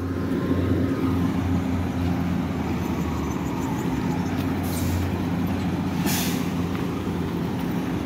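Heavy diesel engine running steadily, with two short hisses about five and six seconds in.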